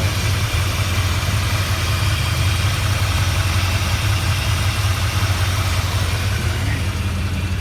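Ford 460 V8 of a 1978 Ford F600 truck idling steadily, running smooth after a freshly redone front end (timing chain, water pump, plugs and wires).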